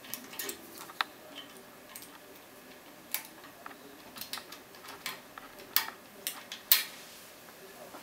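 Irregular small metal clicks and scrapes of a lock pick and tension wrench working in a Vachette V6 radial pin cylinder held in a vise, with a few sharper clicks in the second half.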